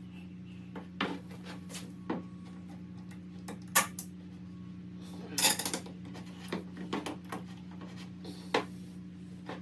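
Irregular knocks and clinks of wooden molding and metal clamps being handled and set in place, the loudest about four seconds in, over a steady low hum.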